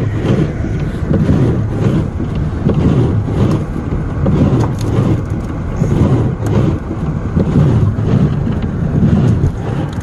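Low, uneven rumble inside a Honda Odyssey minivan's cabin: engine and road noise, swelling and dipping about once a second.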